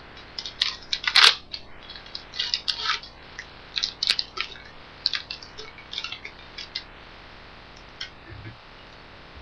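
Baseball card pack wrapper being torn open and crinkled as the cards are pulled out: a run of irregular crackles and rustles that thins out after about seven seconds.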